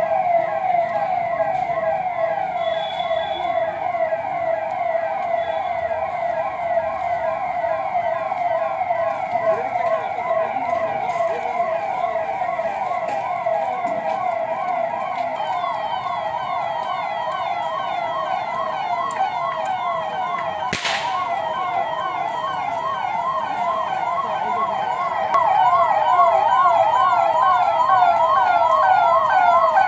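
Police vehicle sirens sounding a fast, repeating yelp, the pitch sweeping up and down several times a second. The sirens grow louder near the end, and a single sharp click sounds about two-thirds of the way through.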